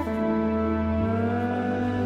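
Background music: sustained synthesizer chords that change at the start and again about a second in.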